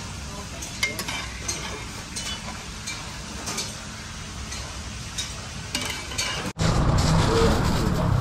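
A metal spoon scraping and tapping lightly through saucy brown stew fish in a takeout container, a small scrape roughly every three-quarters of a second. About six and a half seconds in it cuts off abruptly to a louder, low rumbling background.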